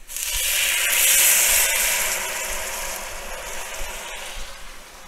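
Vegetable broth poured into a hot Dutch oven over roasting onions and tomato paste, hitting the pot with a loud hiss and sizzle that dies down over the next few seconds.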